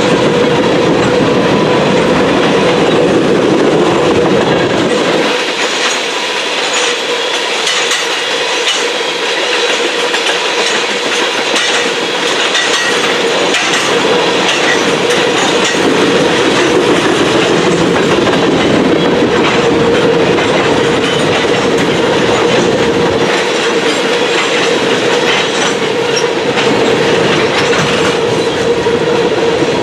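Railroad tank cars of a freight oil train rolling past, steel wheels clicking over the rail joints in a continuous clatter, with a steady tone running through it.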